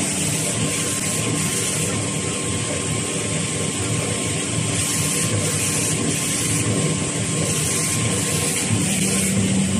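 Machinery of an automatic facial tissue production line running steadily: an even mechanical din with a faint steady tone.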